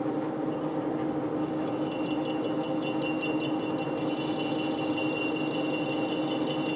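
Monarch engine lathe running steadily with a long pipe chucked in it, a steady hum with a higher whine joining about a second and a half in.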